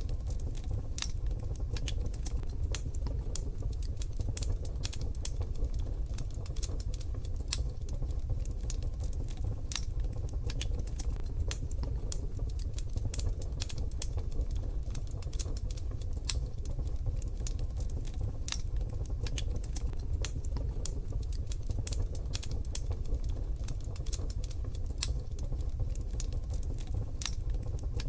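Wood fire in a wood-burning stove crackling: irregular sharp pops and ticks, some louder than others, over a low steady rumble.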